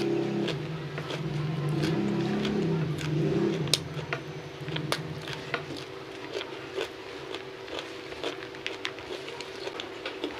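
Eating sounds: open-mouthed chewing and wet lip-smacks with sharp clicks, and fingers pressing rice together on a banana leaf. A steady low engine hum lies underneath for about the first three and a half seconds, then fades.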